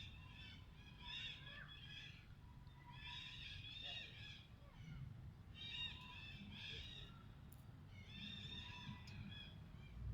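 Faint high-pitched animal calls in bursts about a second long, repeating every couple of seconds over a low rumble.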